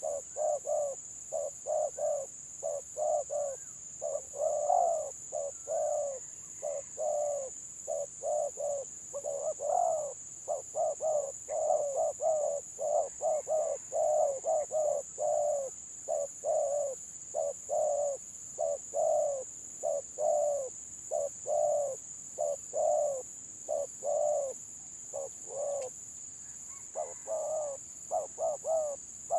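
Two spotted doves cooing back and forth in quick, broken runs of short coos, the stuttering 'gagap' call style. A steady high-pitched whine sits behind them.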